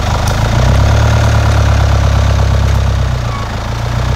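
Off-road 4x4's engine running at low revs, a steady deep drone that dips briefly a little past three seconds in.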